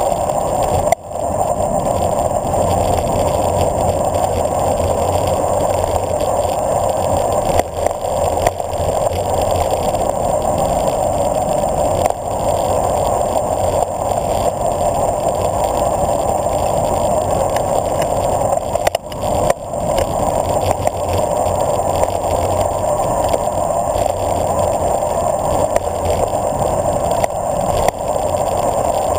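Steady rush of wind over the microphone from a road bicycle descending at speed, with tyre noise on the asphalt. The rush dips briefly about a second in and again around nineteen seconds in.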